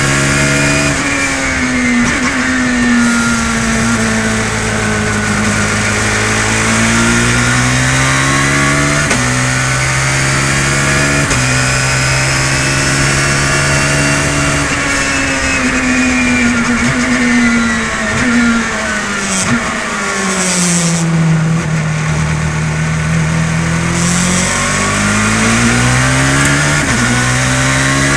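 Car engine running hard on track, its pitch climbing and dropping repeatedly through gear changes. It is misfiring: about two seconds in, the engine drops down to three cylinders.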